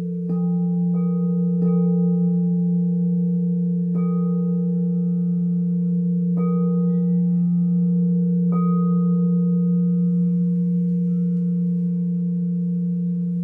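Singing bowls: a large bowl sustains a steady low hum while a smaller bowl is struck six times, each strike adding higher ringing tones that linger over the hum.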